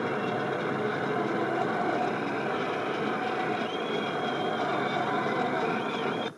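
Large crowd applauding, a dense steady clatter of clapping, on an old newsreel soundtrack, with a faint high whistle about four seconds in.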